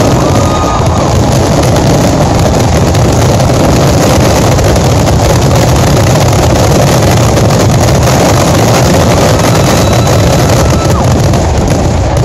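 Fireworks finale: many shells bursting at once, their bangs blending into a loud, continuous rumble and crackle.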